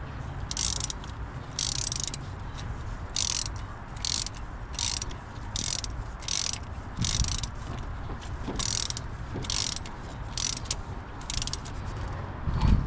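Hand socket ratchet clicking as a bolt on an LT1 V8's water pump is run down by hand: about a dozen short bursts of rapid pawl clicks, one for each back-stroke of the handle, coming irregularly about once a second.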